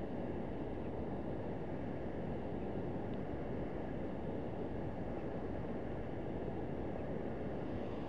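Steady rushing noise of flowing river water, with wind on the microphone.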